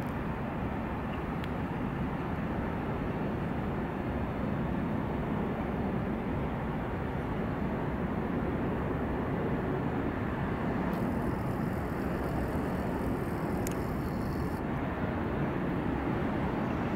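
Steady low rumble of urban background noise in an enclosed courtyard. A faint higher hiss joins it for a few seconds about two-thirds of the way through, with a single click near the end of that hiss.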